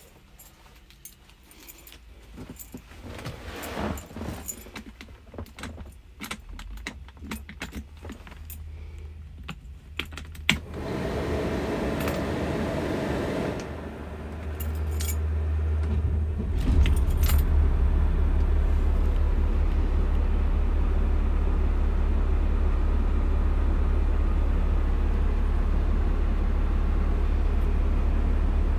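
Keys jangling and dash switches clicking, then the ignition is turned and the 1993 Beaver motorhome's diesel engine cranks and catches about 17 seconds in, settling into a steady low idle.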